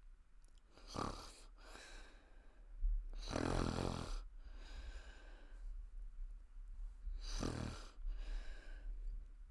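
A woman snoring heavily in her sleep, with three snores: a short one about a second in, the loudest about three seconds in and another about seven and a half seconds in, with quieter breathy breaths between them.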